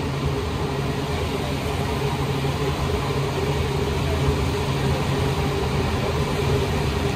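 Interior of an Alstom NS-93 rubber-tyred metro car running between stations: steady running noise with a low hum.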